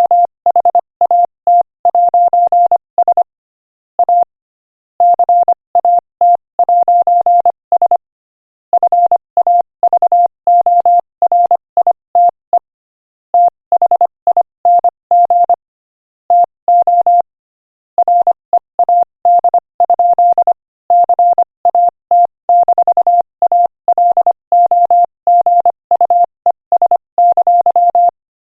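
Morse code sent at 25 words per minute: a single steady mid-pitched tone keyed into short dots and longer dashes, with brief gaps between letters and longer pauses between words.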